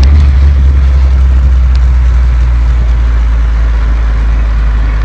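Vehicle engine running close by with a steady low rumble, the towing vehicle for the rope-pulled off-road skateboard.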